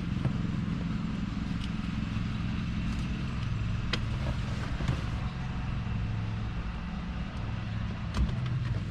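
Lawn mower engine running steadily, with a few light clicks and knocks scattered through it.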